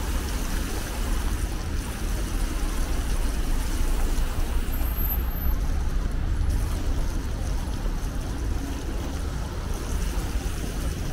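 Steady city traffic noise heard from a moving bicycle, with a strong low rumble.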